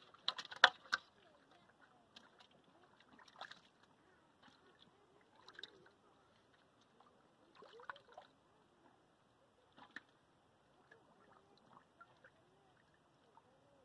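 Scattered splashes and sloshes of shallow muddy water as a hand grabs thrashing fish. The loudest splashes come about a second in, with smaller ones every few seconds after.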